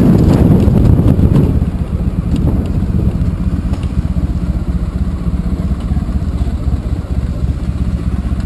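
Honda ST1100 Pan European's V4 engine running at low speed as the motorcycle slows to a stop, then idling steadily. Wind rush on the microphone dies away in the first second and a half.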